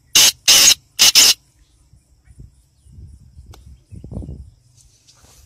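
Black francolin calling from close by: a quick series of about four loud, harsh notes in the first second and a half, then only faint low noises.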